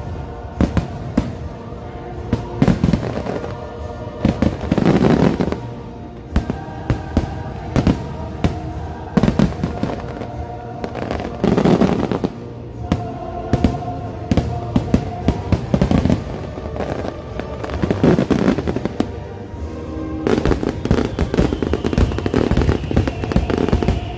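Aerial fireworks bursting in a dense volley of sharp bangs and crackles, with heavier booms every few seconds, over the show's music.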